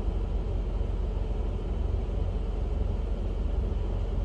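Steady low rumble of a car engine idling, heard from inside the car's cabin.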